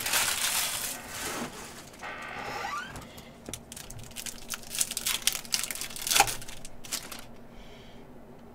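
Foil wrapper of a trading-card pack being crinkled and torn open by hand: a run of crackles and rips that stops about seven seconds in.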